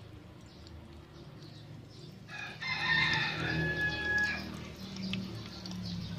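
A rooster crows once, about two seconds in, a single drawn-out crow lasting about two seconds, over the faint crackle of oil frying an eggplant omelette in a small pan.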